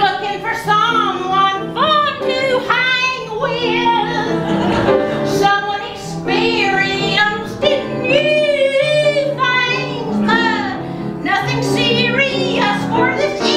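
A woman sings a theatrical art song to grand piano accompaniment, with vibrato on her held notes.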